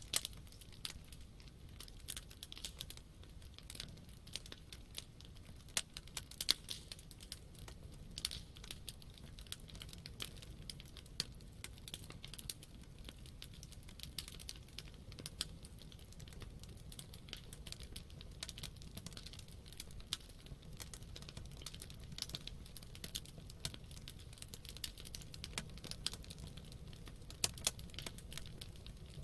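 Campfire burning: wood crackling with many small irregular pops and snaps over a low steady rumble of the flames.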